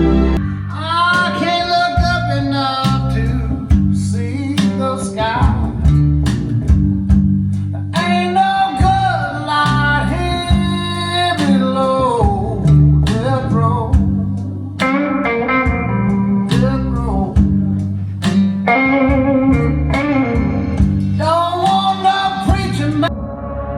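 A song with a singing voice over guitar and a plucked bass line, played back through hi-fi loudspeakers in a demo room. Near the end it cuts to a different, calmer piece.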